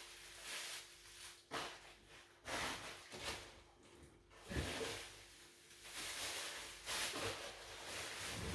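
Plastic food bags rustling and crinkling as raw chicken pieces are handled and packed into them, in several separate bursts of handling noise, some with a soft thud.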